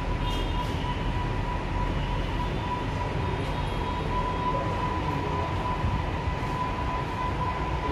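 Steady low rumble with a constant thin high tone running through it.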